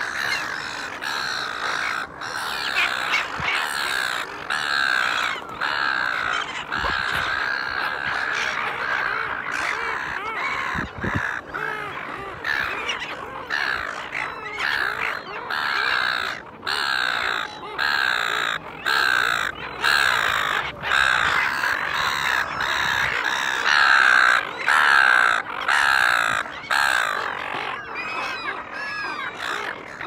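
A flock of silver gulls calling, many short calls overlapping in a continuous chorus with brief lulls.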